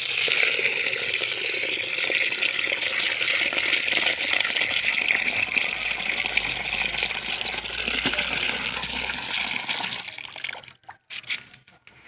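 Tap water pouring steadily into a plastic tub of wheat grain, filling it to rinse the grain. The flow stops about ten seconds in, followed by a few short splashes as the water in the tub is sloshed.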